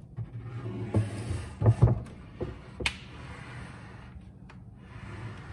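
A pull-out drawer being slid into a kitchen cabinet: scraping with several sharp knocks over the first few seconds as it goes in, a tight fit, then quieter.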